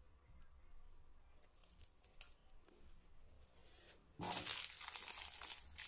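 Faint handling clicks, then about four seconds in the foil wrappers of mini Snickers bars crinkle and rustle as gloved hands gather them up.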